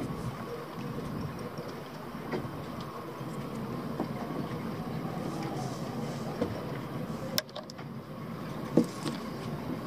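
Steady low rumble of background noise with a few light clicks; the sharpest click, near the end, comes as the lanyard safety key is set onto the ePropulsion remote control unit.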